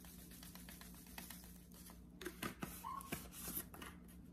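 Faint clicks and rattles of a spice container being shaken, as seasoning goes into a bag of chicken drumsticks. The clicks grow denser and louder about halfway through, over a low steady hum.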